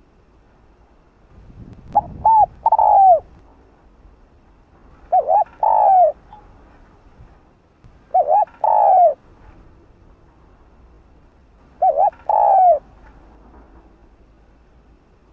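Spotted dove (Streptopelia chinensis) cooing: four phrases about three seconds apart, each a couple of short coos followed by a longer falling coo.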